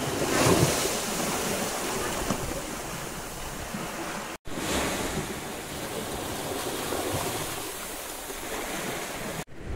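Small sea waves washing in over rocks and sand at the shoreline: a continuous wash of surf, swelling about half a second in. The sound breaks off abruptly twice, briefly, at edit cuts.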